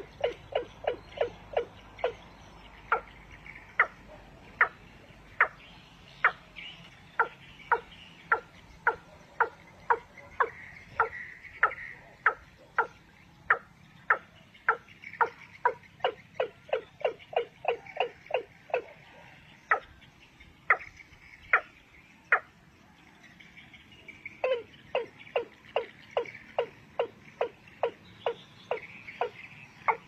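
A game bird's call, a run of short clucking notes repeated about two to three times a second, with a break of about two seconds roughly three-quarters of the way through.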